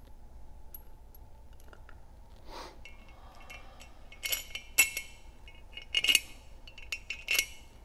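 A handful of sharp metal clinks in the second half, some ringing briefly, from bolts, nuts and a hand tool against the spring tower flange of a Sensus 461-57S gas regulator as the spring tower bolts are started and tightened down.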